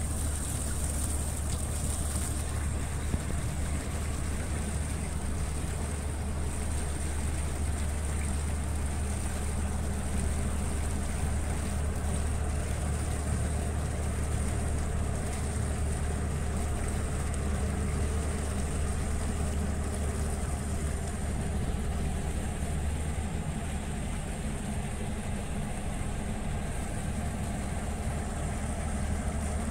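Large motor ship's engines running with a steady low drone as the vessel passes close by.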